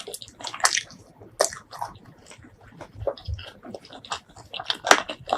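Close-miked mukbang eating: wet chewing and mouth smacks in an irregular run of short clicks, with the loudest smack near the end.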